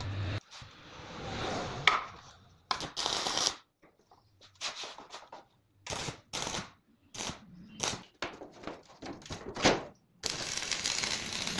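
Stick arc welding on a steel frame: a run of short crackling bursts as the welder strikes and breaks the arc for tack welds, then a steadier crackle of a longer weld from about ten seconds in.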